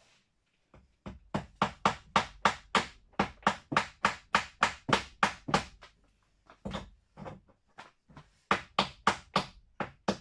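Hammer driving nails into old wooden boards: quick, sharp blows about four a second, in two runs with a few slower blows between.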